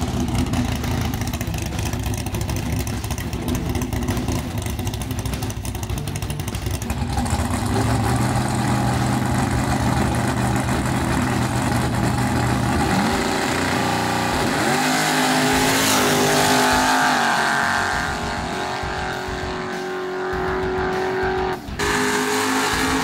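Chevrolet S10 drag-racing pickup's engine running hard at high revs during burnouts. Its pitch rises sharply as it is revved around two-thirds of the way through, and the sound cuts out briefly near the end.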